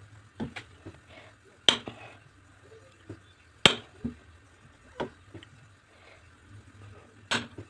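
A kitchen knife slicing through a log of hard homemade soap, the blade knocking sharply on the granite countertop as each round is cut off. About five short knocks a second or two apart, the loudest two near the second and fourth seconds.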